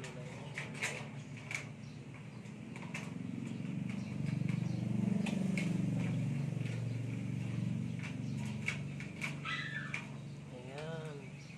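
A low motor hum swells and then fades, with scattered sharp clicks throughout and a few bird chirps near the end.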